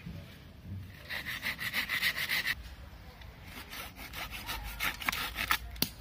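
Small hand saw cutting through a wooden branch in quick, even strokes, in two runs with a short pause between them, and a sharp knock near the end.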